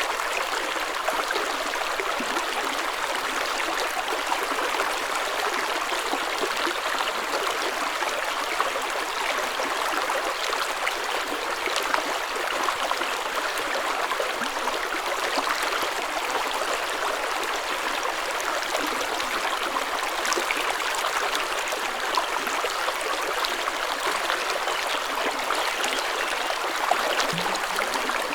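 Spring water flowing in a stream: a steady rush with fine trickling and gurgling, mostly high-pitched with almost no low rumble.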